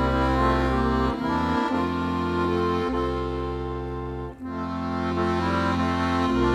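Accordion playing a slow traditional tune: a melody over held chords, with the bass notes changing every second or two and the sound briefly dipping at the changes.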